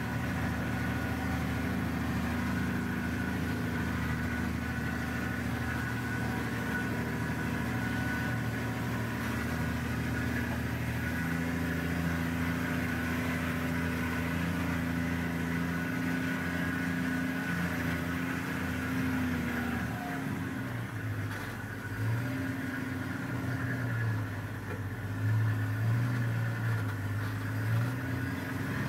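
Engine of an open safari game-drive vehicle running as it drives up a dirt track. Its note changes about a third of the way in and turns uneven, with louder low surges, in the last third.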